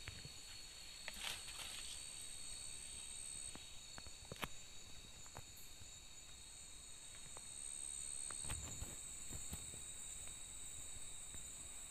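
Night insects trilling steadily in two high, even tones, with a few faint clicks and rustles now and then.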